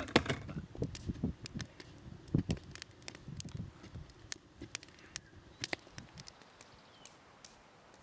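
Irregular sharp clicks and knocks, densest in the first half, with a few dull thumps about two and a half seconds in.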